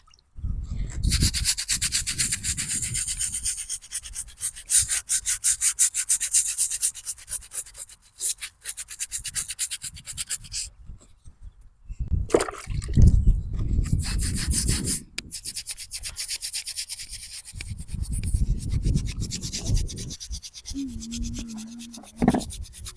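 Brush scrubbing a stone headstone: fast back-and-forth scratchy strokes, stopping briefly a couple of times in the middle.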